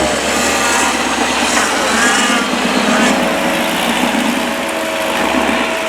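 Engine of a 4x4 off-road vehicle running under load, its pitch rising and falling as the throttle is worked, with voices in the background.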